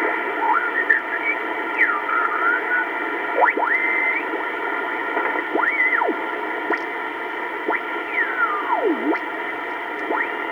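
Kenwood TS-820S receiver audio on the 75/80 meter amateur band: steady band hiss with several whistling heterodyne tones that glide up and down in pitch as the tuning moves across signals.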